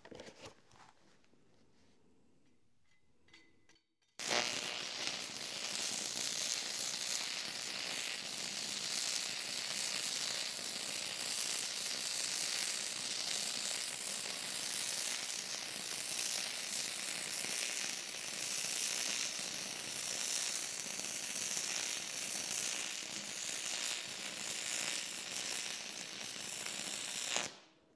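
Stick-welding arc of a 6011 electrode running on 60 Hz AC from a Miller Dynasty: struck about four seconds in, it buzzes steadily for over twenty seconds and cuts off sharply near the end. The buzz is all from the arc itself; the welder is silent.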